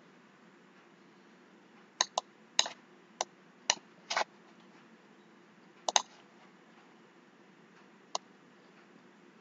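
Computer mouse clicking about eight times at irregular intervals, over a faint steady room hiss.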